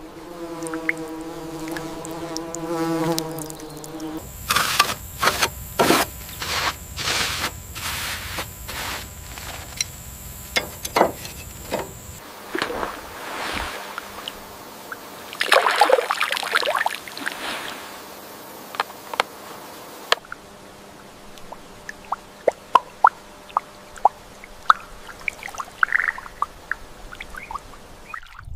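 Water dripping and trickling, with many small irregular drips and plops. A buzzing hum runs for the first few seconds, and there is a louder stretch about sixteen seconds in.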